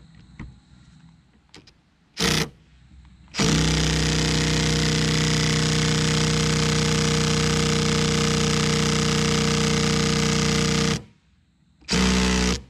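Cordless impact tool hammering on the rust-seized nut of a rear wiper arm: a short burst about two seconds in, a long run of about seven and a half seconds, then another short burst near the end, each stopping abruptly.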